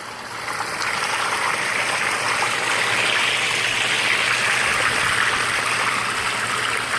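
Water from an outdoor sump pump's discharge pouring and splashing steadily as the pump lifts yard water out. It swells up within the first second and then holds steady.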